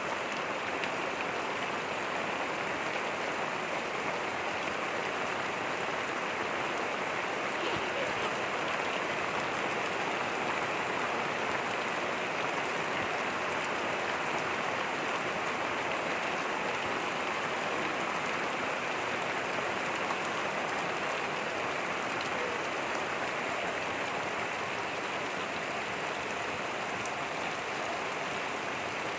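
Steady rain falling on a garden: an even, unbroken hiss that holds at the same level throughout.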